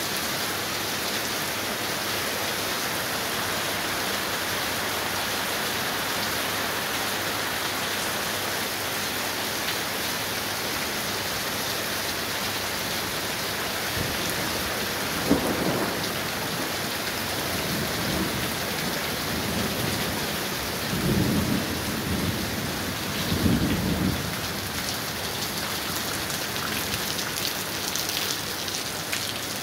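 Heavy rain pouring steadily onto a street and porch. About halfway through a sharp crack of thunder, followed by two low rolls of thunder rumbling later on.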